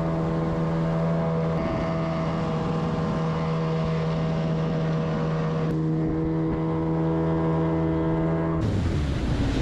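25-horsepower outboard jet motor running at a steady cruising speed, driving an inflatable raft along a river. Near the end the steady engine tone gives way to rushing wind and water noise.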